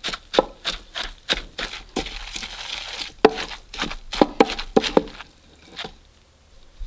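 Wooden pestle pounding mushroom pepper dip (roasted mushrooms, shallots, garlic, chili and fresh herbs) in a wooden mortar: dull, even knocks about two to three a second, stopping about five seconds in.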